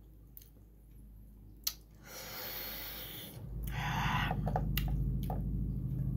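Fingers picking and pulling at soft boiled pork belly on a plate, giving small wet squishes and clicks, with a breath through the nose about two seconds in. A low steady hum comes in after about three and a half seconds.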